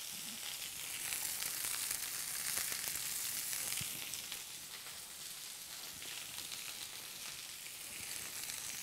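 Pork sausages and sliced onion frying in oil in a pan: a steady sizzle with small crackles, easing slightly about halfway through.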